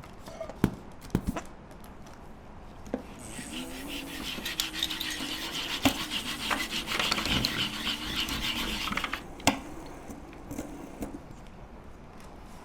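A foley sound effect: a rough rubbing, rasping noise lasting about six seconds, with a wavering squeak-like tone beneath it. A few sharp knocks come before it and one after.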